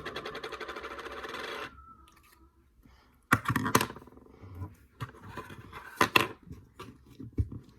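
Slime being squished and stretched in the hands: a dense run of rapid sticky clicks for about the first second and a half, then scattered sharp pops and crackles.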